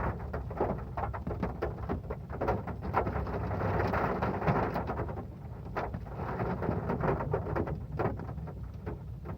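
Heavy rain falling on a metal roof: a dense patter of drops with many sharper individual hits, over a steady low rumble.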